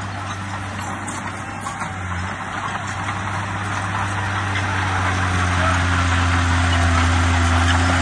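Diesel engine of a Komatsu D20P small crawler bulldozer running steadily under load as it pushes dirt, a low drone that grows louder over the second half.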